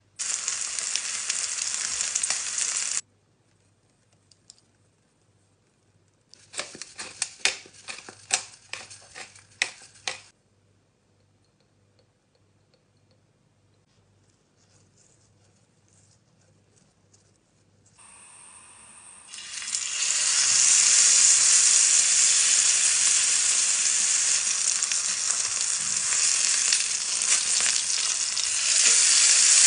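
Ribeye steak sizzling in a hot frying pan for about three seconds, then a cluster of sharp ticks and taps, a long quiet stretch, and the sizzle coming back loud and steady from about twenty seconds in.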